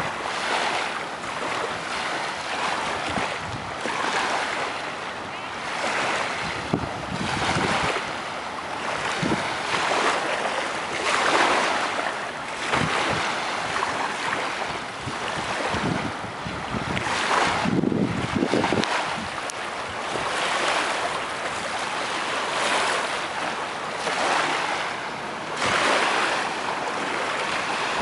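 Rushing noise that swells and fades every second or two, like waves washing on a shore, with wind buffeting the microphone in low thumps.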